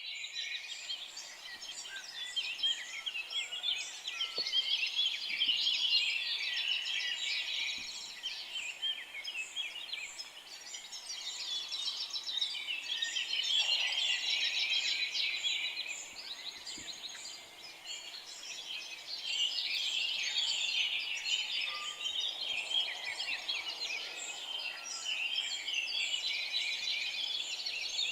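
Morning chorus of many songbirds chirping and trilling over one another in a dense, continuous tangle, swelling and easing off in slow waves.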